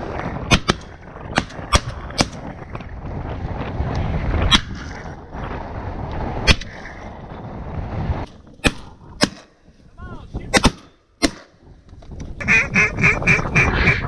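Strong wind rushing over the microphone with scattered sharp clicks, then, about twelve seconds in, a fast run of loud duck quacks, about five or six a second.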